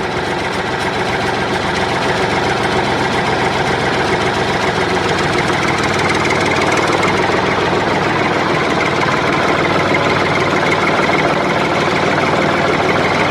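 A small motor running steadily with a fast, even rattle.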